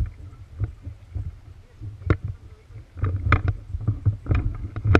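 Irregular thuds and knocks over a low rumble, sparse at first, then bunched together about three seconds in and again near the end.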